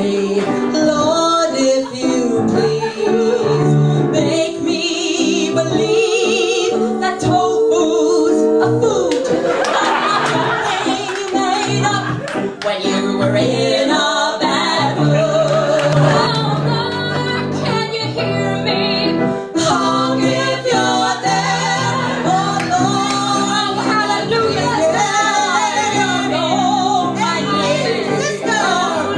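Female vocal trio singing a comic cabaret song live, voices together over piano accompaniment.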